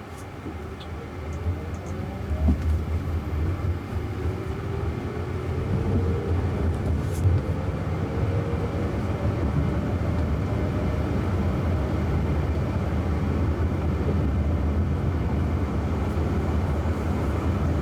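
Inside the cabin of a Jaguar I-Pace electric car pulling away: low road and tyre rumble grows over the first several seconds, and a faint electric-motor whine rises in pitch as the car gathers speed. It settles into steady cruising road noise.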